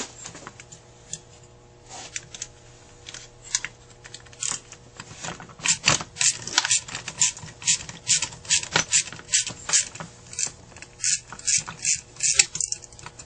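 Metal parts of a Carter AFB carburetor clicking and scraping as they are handled and pulled apart by hand. The irregular taps are sparse at first and come faster and louder from about halfway through, over a steady low hum.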